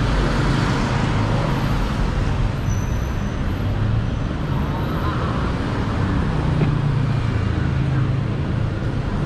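Steady traffic on a busy city street: cars, a van and motorbikes passing, with engine hum and tyre noise.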